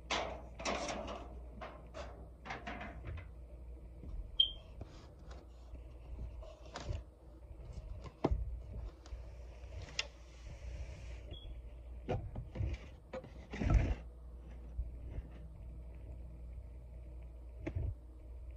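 Disposable aluminium foil baking pan being handled and moved about: irregular crinkles, taps and knocks, with the two sharpest knocks about four and fourteen seconds in.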